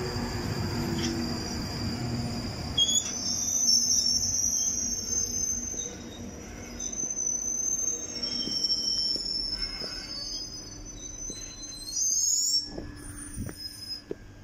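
London Underground Northern Line 1995-stock tube train at the platform: a low rumble for the first three seconds or so, then high wavering squeals that come and go, with a short rising squeal near the end.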